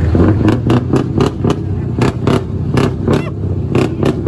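Scania V8 diesel truck engine running, revved in a quick series of short, sharp throttle blips over a steady low idle.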